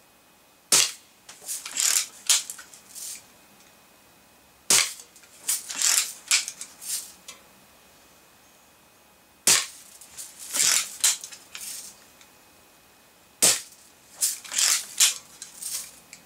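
Daisy Red Ryder spring-piston BB gun fired four times, about four seconds apart. Each sharp shot is followed by a run of clicks as the lever is worked to cock it again.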